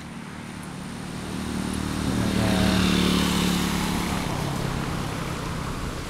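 A motor vehicle's engine passing by. It grows louder to a peak about three seconds in, then slowly fades away.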